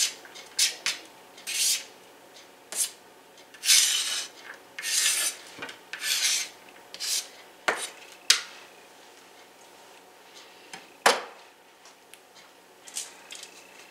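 Chef's knife blade scraping and tapping diced onion across a plastic cutting mat, gathering it into a pile: a run of short strokes and longer rasping scrapes. Later comes a single sharp knock.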